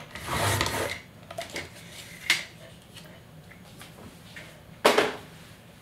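A sliding paper trimmer's blade swishes along its rail, cutting through a cardstock tag in under a second. It is followed by a few light clicks and, about five seconds in, one sharp knock of something set down on a wooden desk.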